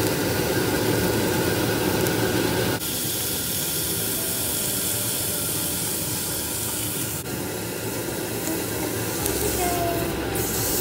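Beef steak sizzling on a hot ridged grill pan, a steady hiss that changes abruptly twice, about three and seven seconds in.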